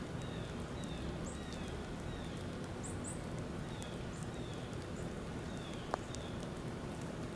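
Small birds chirping over a steady outdoor hiss, with a short falling chirp repeated every second or so and a few higher chirps. A single sharp click comes about six seconds in.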